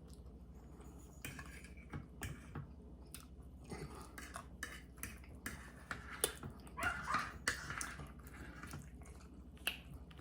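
Eating at the table: chewing, with scattered clicks and clinks of cutlery against plates.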